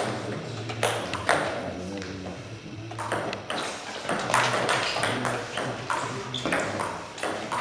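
Table tennis rally: the celluloid ball clicks off the bats and bounces on the table in short, sharp pings.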